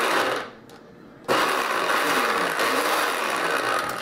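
Compact single-serve blender motor pulsed on and off while blending mixed seafood and water into a chunky paste. It cuts out about half a second in, starts again abruptly about a second later, and runs until near the end, its pitch sagging and recovering as the load shifts.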